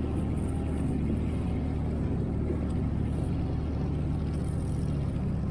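CFMoto Uforce 1000XL side-by-side's V-twin engine running steadily as it drives up a gravel trail, heard from on board the vehicle.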